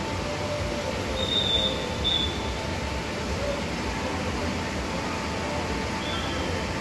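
Steady rushing of water from an artificial waterfall and fountain pools, even and unbroken. Two short high whistles sound between about one and two and a half seconds in.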